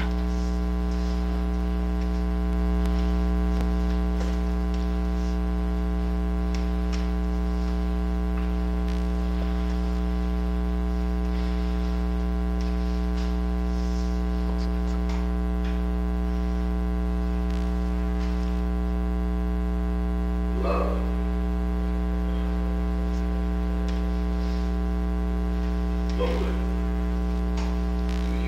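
Loud, steady electrical mains hum with a ladder of overtones, unchanging throughout, with two faint brief noises late on.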